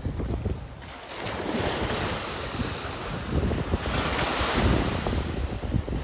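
Small surf waves washing up onto a sandy beach in two surges, about a second in and again around four seconds, with gusty wind buffeting the microphone.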